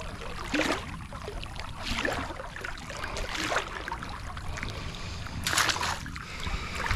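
A hoop crab dip net (jereré) baited with a fish head is tossed into shallow river water and lands with one loud splash about five and a half seconds in. Before that, softer water splashing.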